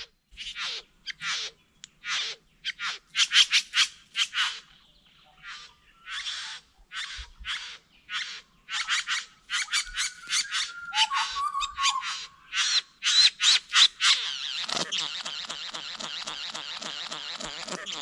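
Male satin bowerbird's courtship display song: a fast series of harsh, rasping, buzzy calls, several a second. About fifteen seconds in it gives way to a steady, dense rattling buzz.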